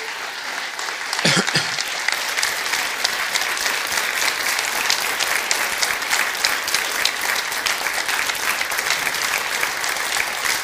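Audience in a hall applauding with dense, steady clapping.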